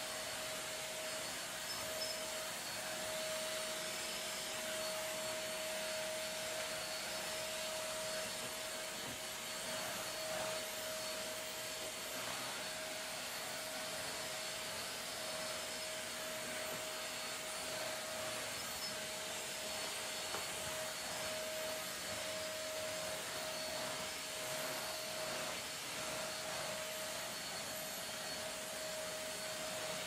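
Deerma DX115C stick vacuum cleaner running steadily at full suction, a steady whine over its motor noise, as its floor head is pushed back and forth over tile.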